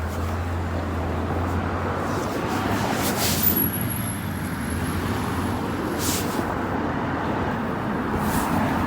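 Steady wind and road noise from riding an electric bike, with a low hum that is strongest over the first few seconds and a few short noisy bursts.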